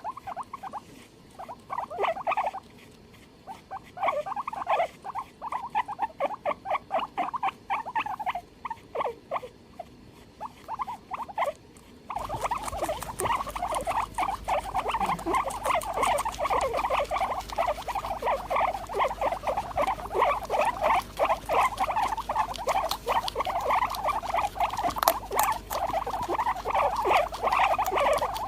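Guinea pig making rapid, repeated short squeaking calls. About twelve seconds in the recording changes to a denser, continuous run of calls over a steady low hum.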